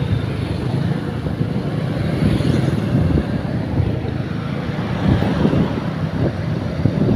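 Wind rushing over a phone microphone on a moving motorcycle, with the motorcycle's engine and road noise running steadily underneath.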